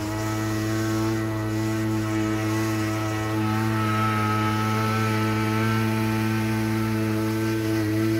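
Backpack power duster's two-stroke engine running steadily at high speed, blowing granular fertilizer.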